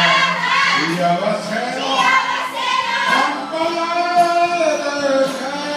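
Karaoke: a voice singing a Japanese song's melody over the backing music, with long held notes.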